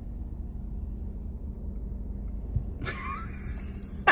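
Steady low rumble with a faint steady hum, heard from inside a car stopped in traffic beside a passing freight train. About three seconds in, a higher, wavering sound joins.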